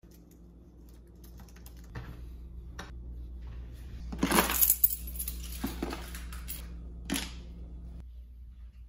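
Soft clicking of typing on a computer keyboard, then, about four seconds in, a bunch of keys on a carabiner keyring jangling loudly as they are handled, with a shorter jangle about three seconds later.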